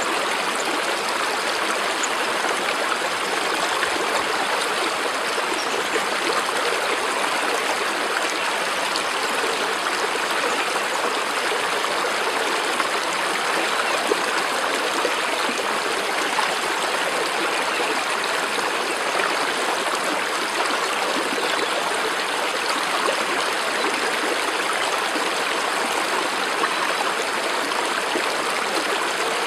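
Running water of a stream, a steady unbroken rush with no pauses or single splashes.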